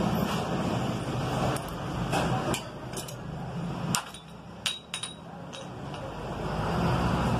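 Scattered sharp metallic clinks and taps of steel motorcycle clutch parts and a screwdriver being handled, about eight in a few seconds. Underneath is a steady low hum of traffic that swells near the end.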